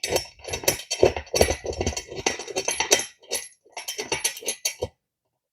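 Small metal parts of a steel bed frame clinking, rattling and scraping as a bolt and washer are fitted and threaded in by hand: a quick run of light metallic knocks that stops abruptly near the end.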